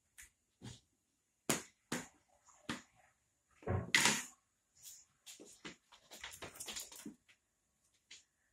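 Scattered knocks and light clatter from a cat scrambling around empty plastic litter trays on a laminate floor. The loudest knock comes about four seconds in, followed by a quicker run of lighter clatter.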